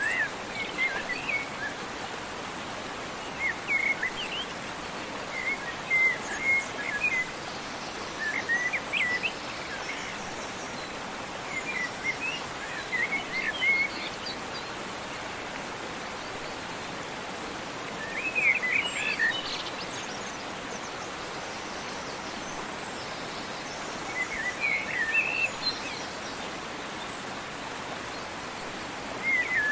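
Small birds chirping in short bursts every few seconds over the steady rush of a waterfall.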